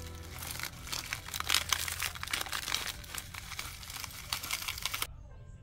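Plastic wrapper of a Nature Valley Crunchy granola bar crinkling in the hand, as the crumbled bar is shaken out of it. The crackling is dense and irregular and cuts off suddenly about five seconds in.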